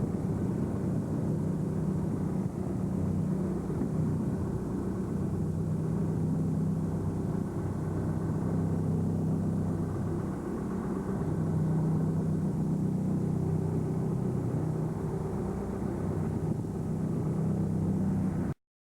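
Small fishing boat's engine running steadily at low throttle, a low drone that swells slightly now and then, then cuts off abruptly near the end.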